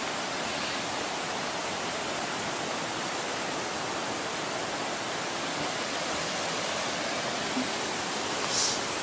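Rushing river water, a steady, even hiss of falling and flowing water.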